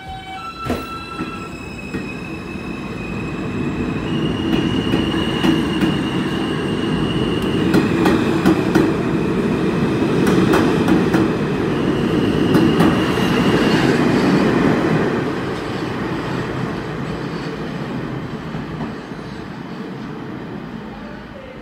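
R160 subway train pulling out of an underground station: its propulsion whine of steady high tones over a heavy rumble, with wheels clicking over the rail joints, growing louder as the cars pass and fading as the train draws away into the tunnel.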